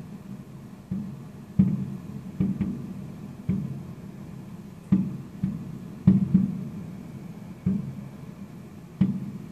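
Distant fireworks going off: a string of irregular booms, about one or two a second, each dying away in a short echo.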